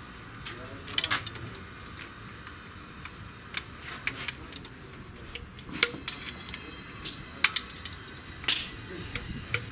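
Sharp metallic clicks and taps of hand tools and parts being handled on a partly stripped engine's cylinder head, about a dozen at irregular intervals.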